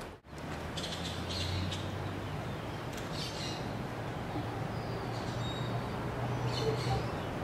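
Birds chirping several times in short calls over a low, steady hum.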